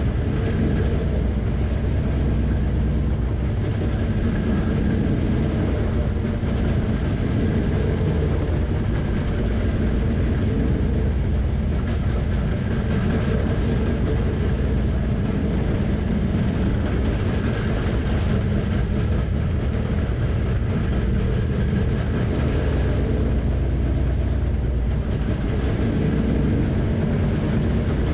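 Dirt late model race car's V8 engine running steadily at low speed, about 28 mph, heard from inside the open cockpit together with road and wind noise.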